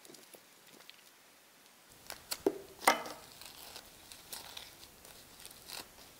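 Plastic wrapping crinkling and rustling as it is pulled off a snake plant by hand: a few faint ticks at first, then a run of sharp crackles from about two seconds in, loudest near three seconds.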